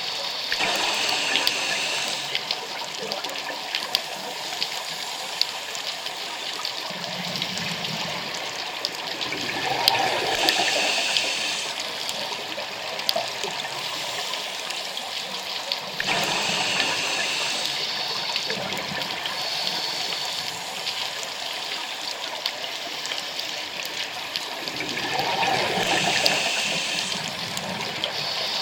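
Scuba diver's breathing underwater heard through the camera housing: regulator hiss and bursts of exhaled bubbles that swell and fade in slow cycles, about every eight seconds.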